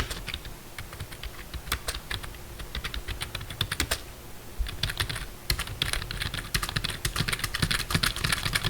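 Typing on an HP CK420U low-profile membrane keyboard with chiclet keys: scattered key clicks at first, then a faster, steady run of keystrokes from about halfway in. The loose large keys such as Shift and Enter add a slight extra sound, which the reviewer says can be ignored in normal typing.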